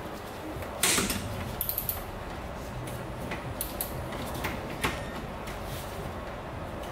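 A few sharp clicks and knocks, the loudest about a second in, over steady low background noise.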